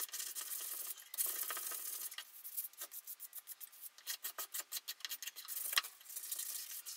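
Sandpaper rubbed by hand over the blade of a turned plum-wood letter opener. It starts as an even rubbing, then from about two seconds in turns into short, quick back-and-forth strokes, several a second, which ease off near the end.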